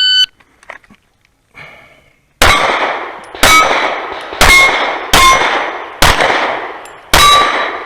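A shot timer's start beep, then six pistol shots from a Sig P320 Carry over about five seconds, each followed by the ringing clang of a steel target being hit.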